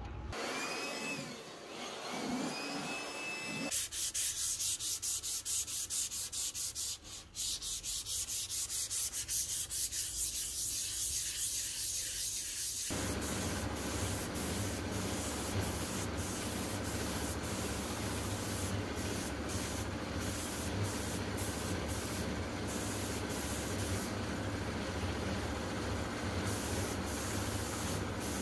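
Hand sanding of a speaker cabinet panel in quick, evenly spaced back-and-forth strokes. About thirteen seconds in it gives way to the steady hiss of a compressed-air spray gun spraying paint onto the cabinet.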